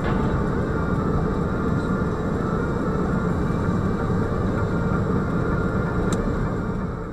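Steady low rumble of a car's engine and road noise heard from inside the cabin through a dashcam, with a faint knock at the start as a sedan strikes an SUV across the intersection. A small click about six seconds in, and the sound fades out at the very end.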